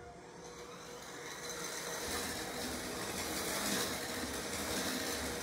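KitchenAid electric hand mixer running with its wire whisk attachment in a bowl of heavy cream, whipping it toward stiff peaks. The motor runs steadily, growing louder over the first two seconds or so.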